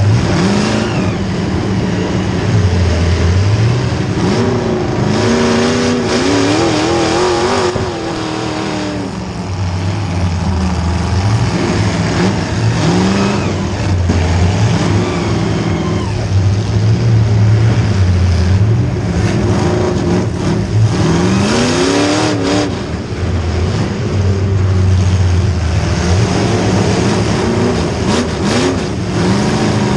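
A small-block Chevy V8 in a demolition derby car revving up and falling back over and over as it is driven hard. A few sharp knocks cut in, mostly near the end.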